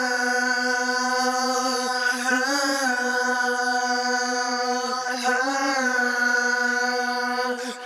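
Unaccompanied male rock vocals holding a long sung note on a near-steady pitch, with slight bends, breaking off briefly near the end before resuming.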